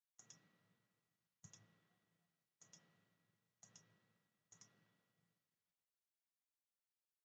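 Faint computer mouse button clicks: five clicks spaced a second or so apart, each a quick double tick.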